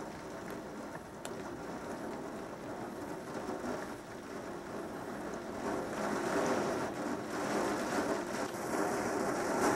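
Heavy rain falling and pattering against window glass, a steady wash of noise that grows louder about six seconds in.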